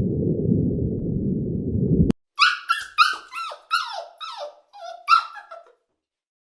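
A low rumbling noise that cuts off suddenly about two seconds in, followed by a quick series of about ten short animal calls, each falling in pitch.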